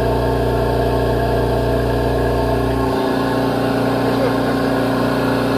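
Reciprocating compressor running steadily on a test run. About three seconds in, its deep low hum drops away abruptly, leaving a steady, somewhat higher hum at the same loudness.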